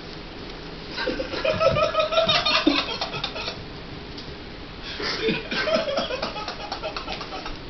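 A person laughing in two bouts, about a second in and again around five seconds, each a run of short high-pitched pulses.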